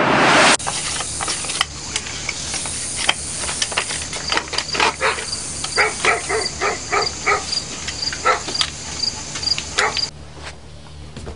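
A rising hiss that cuts off sharply about half a second in. After it, insects chirp in a regular high pulse, with scattered clicks and a few short pitched animal calls.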